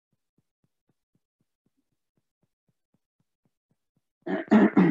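Near silence for about four seconds, then a short burst of a person's voice near the end.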